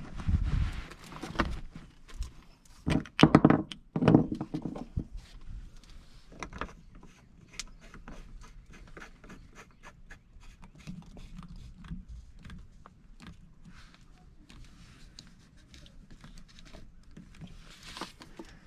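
Handling of tools and plumbing parts: scattered clicks, knocks and rattles, with a cluster of louder thumps about three to four seconds in, then lighter ticking and scraping.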